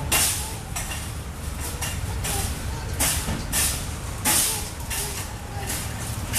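Footsteps scuffing along at walking pace, short hissing scuffs about every half second, over a steady low rumble.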